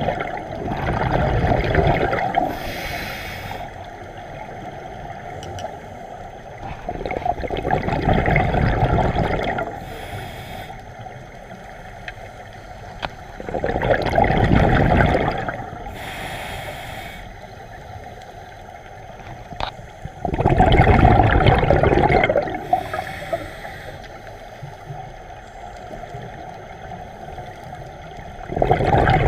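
A scuba diver breathing through an Aqua Lung regulator underwater: a long bubbling exhale about every six to seven seconds, five in all, each followed by a short hissing inhale.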